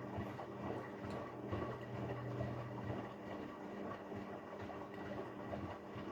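Haier 7.5 kg washing machine running a delicate wash: a steady motor hum with the drum turning and a crackling rumble from the load.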